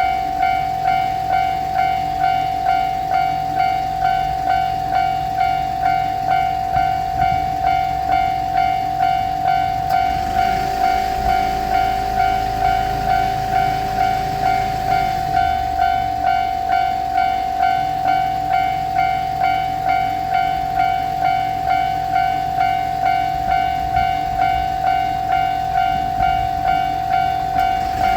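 Japanese railway level-crossing bell ringing its steady electronic "kan-kan" at an even beat of about three strokes every two seconds. A second, lower steady tone sounds over it for about five seconds midway.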